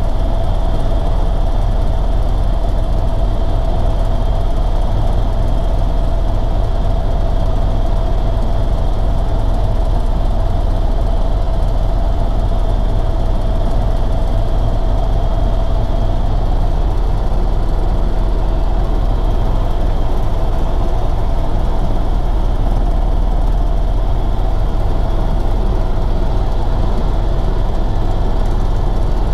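Eurocopter EC130 helicopter in cruising flight, heard from inside the cabin: the steady, loud drone of its turboshaft engine and rotors, a deep rumble under a constant whine.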